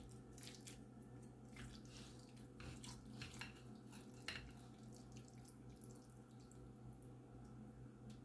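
Near silence: faint, scattered soft taps and wet clicks of a serving spoon cutting into and scooping tuna noodle casserole from a glass baking dish, over a low steady hum.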